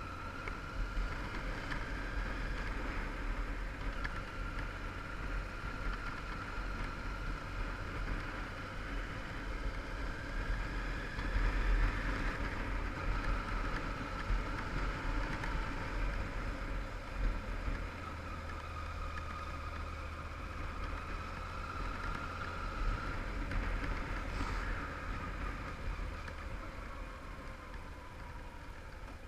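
Yamaha TDM850 parallel-twin engine running while the motorcycle is ridden along, its pitch rising and falling gently with the throttle. A steady low rumble of wind on the camera microphone runs underneath.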